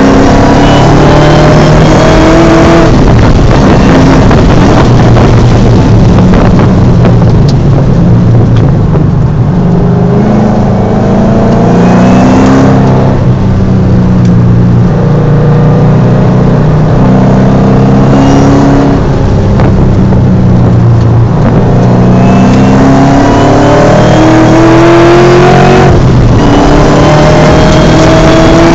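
Shelby GT500's supercharged 5.4-litre V8 under hard acceleration at racing speed. Its note climbs steadily in pitch, then falls sharply, four times.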